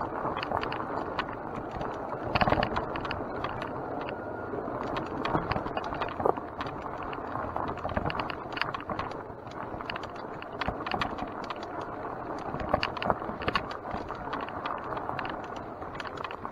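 Mountain bike being ridden over a dirt trail: steady rolling noise with frequent rattles and knocks from the bike, the loudest about two and a half seconds in.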